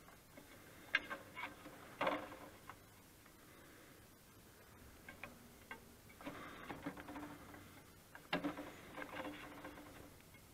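A stack of postcards being handled and set into a stamp applier's metal feed hopper: faint scattered taps and clicks, with two short stretches of paper sliding and rustling in the second half.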